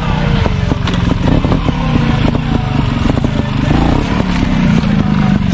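Trials motorcycle engine running at low revs, its pitch rising and falling as the throttle is worked, with many short knocks and clatter over it.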